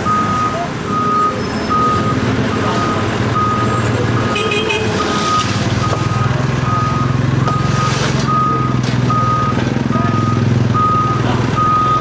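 Hyundai H940C backhoe loader's reversing alarm beeping steadily, a little more than once a second, over its running diesel engine, which grows louder about halfway through as the machine works its loader bucket.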